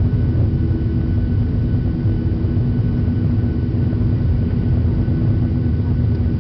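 Cabin noise inside a Boeing 737-800 climbing out after take-off: the steady drone of its CFM56-7B turbofan engines and rushing airflow, with a couple of steady low hums running through it.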